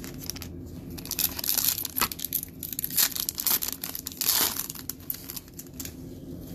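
Foil wrapper of a football trading card pack being torn open and crinkled, a run of crackly tearing bursts with the loudest about a second and a half in and again just past four seconds.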